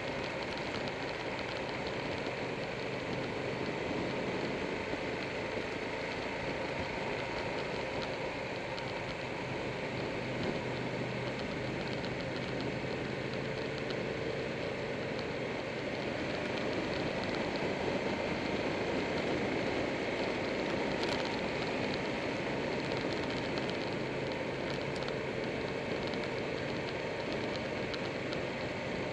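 Motorcycle being ridden at road speed, heard from a camera mounted on the bike: steady rushing wind noise over the engine's running note, whose pitch drifts slightly up and down through the bends.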